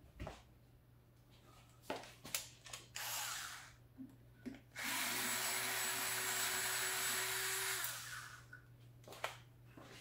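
Cordless electric screwdriver running on a screw in a ventilator's metal side panel: a short run about three seconds in, then a steady run of about three seconds from about five seconds in. A few sharp handling clicks come before and after.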